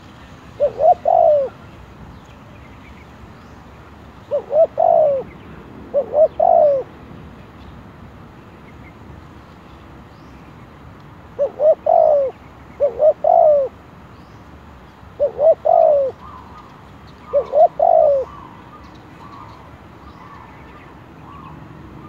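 Spotted dove cooing: seven phrases, each of quick short notes running into a longer arched coo, coming in loose pairs with pauses of a few seconds between.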